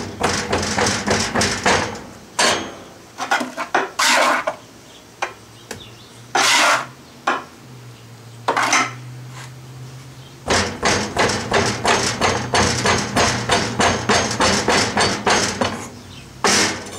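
Wooden hand rammer packing prepared molding sand into a foundry flask: quick runs of dull thuds at about three to four a second, near the start and again through the last six seconds. In between, a few short rushes as more sand is tipped in from a scoop.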